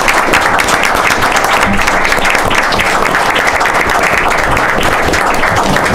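A small audience and board applauding steadily, many people clapping at once.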